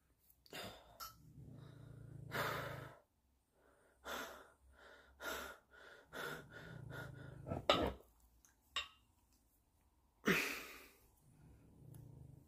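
A man breathing hard in and out, catching his breath after a set of dumbbell bicep curls, with a few louder huffs among the breaths.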